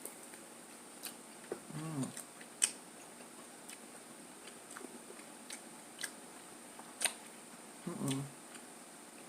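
A person chewing food with the mouth close to the microphone: scattered wet mouth clicks and smacks, and a short hummed "mm" twice, about two seconds in and about eight seconds in.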